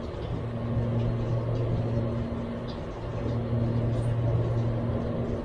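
Steady low mechanical hum with a continuous rumble underneath, between rifle shots.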